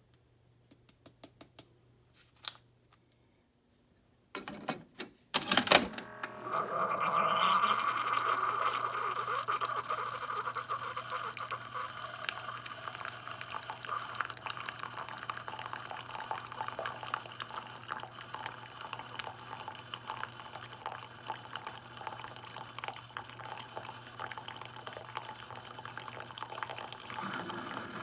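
A few clicks and knocks, then, about six seconds in, a steady stream of liquid running or filling that goes on to the end.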